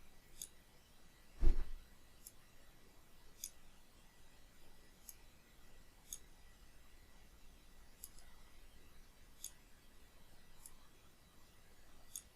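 Computer mouse clicking, single sharp clicks every second or two. One dull low thump about a second and a half in.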